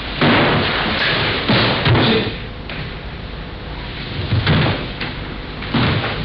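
A series of heavy thuds and knocks from a naginata demonstration on a wooden dojo floor: wooden practice naginata striking and feet stamping. Three come in the first two seconds, then a quieter gap, then two more about four and a half and six seconds in.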